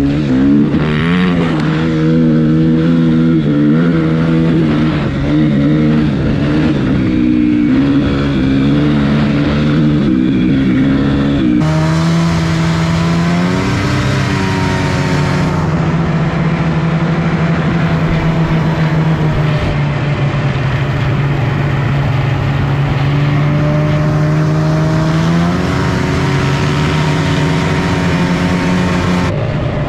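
Motor vehicle engine running at high, fairly steady revs, its pitch holding for several seconds at a time with a few short rises and falls. The sound changes abruptly about twelve seconds in.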